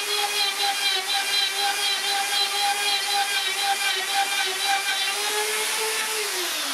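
Electric plunge router running at full speed while cutting loose-tenon slots in hardwood frame parts on a slot-mortising jig, a steady whine. Near the end it is switched off and the whine falls in pitch as the motor spins down.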